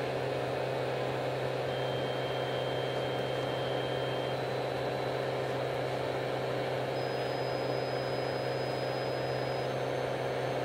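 Faint sine test tone from an audio-analyzer frequency sweep, stepping up in pitch every few seconds, over a steady hum and rushing noise from the bench.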